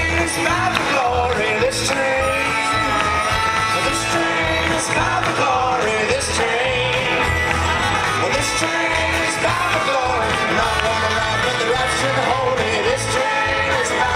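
Live folk band playing loudly on acoustic guitars, with voices singing over a steady low beat.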